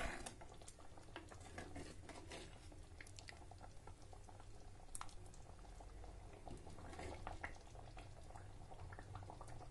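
Thick paneer gravy bubbling faintly, with many small scattered pops and clicks while it is ladled from the pot into a serving bowl.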